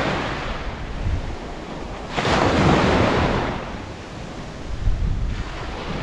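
Small waves breaking and washing up a sandy beach, the surf swelling and ebbing, with a fresh wave breaking about two seconds in and another near the end. Wind buffets the microphone.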